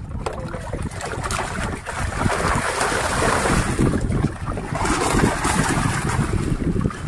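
Wind rumbling on the microphone, with water noise swelling twice, around the middle and again near the end.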